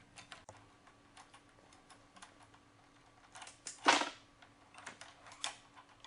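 Small metallic clicks and clinks of a wrench and the handlebar clamp bolts being unscrewed from the motorcycle's top triple clamp, with a louder clack about four seconds in and a few more clicks near the end.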